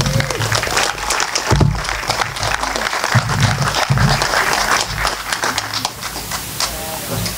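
Audience applauding, with a few cheers near the start, thinning out toward the end.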